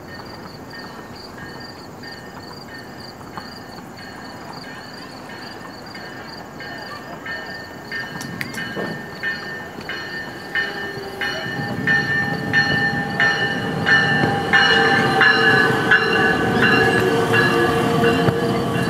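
Metra Electric bilevel electric train approaching and drawing alongside, growing louder through the second half. A regular run of wheel clicks over the rail joints comes in about halfway, with steady whining tones riding over it near the end.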